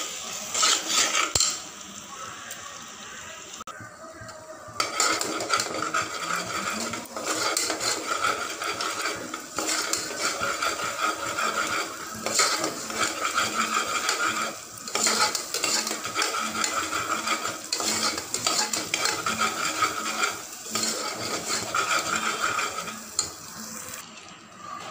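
Steel ladle stirring and scraping a thick ground masala paste in a pressure cooker pot, in repeated strokes with short pauses, over a light sizzle as the paste fries in oil to cook off its raw smell.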